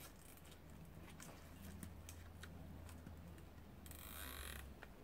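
Faint clicks and rustling of plastic zip ties being threaded and pulled tight around a pine trunk, with a short ratcheting zip about four seconds in.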